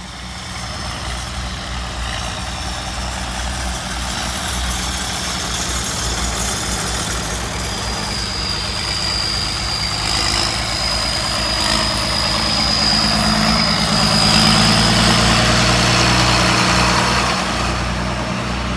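Tractor engines driving slowly past: a red vintage tractor at first, then a large John Deere diesel tractor that grows louder as it comes close and passes, with a thin steady high whine over its engine while it is near.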